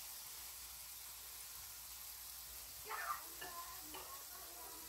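Hot oil sizzling steadily as a batter rosette fries in a small pan, with a faint voice briefly about three seconds in.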